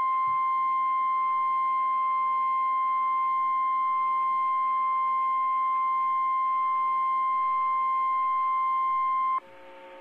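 NOAA Weather Radio warning alarm tone: a single steady 1050 Hz tone, loud and unbroken, that cuts off sharply about nine seconds in. It signals that a warning is about to be read, here a flash flood warning. After the cut, only a faint steady hum from the receiver is left.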